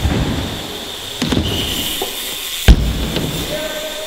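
BMX bike rolling across a hard floor and wooden ramps, with a knock about a second in and a loud bang about two and three-quarter seconds in as the bike hits the wooden ramp, echoing in the large hall.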